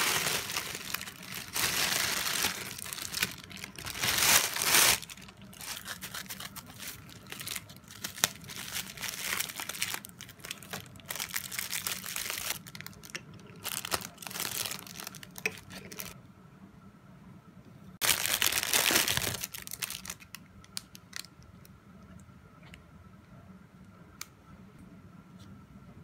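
Plastic packaging crinkling and rustling in repeated bursts as a parcel is unwrapped by hand: a grey poly mailer bag and clear plastic wrapping. The loudest burst comes about 18 seconds in, and the handling turns quieter near the end, with a few small ticks.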